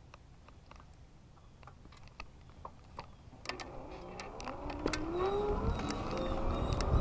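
Heybike Mars electric bike pulling away. After a few quiet seconds of light clicks and rattles, the motor's whine rises in pitch about four seconds in and then levels off, while wind and road noise build as the bike gathers speed.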